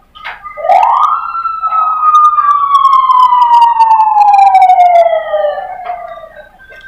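Police car siren sounding a single wail outside: its pitch rises quickly about half a second in, then slides slowly down over about five seconds.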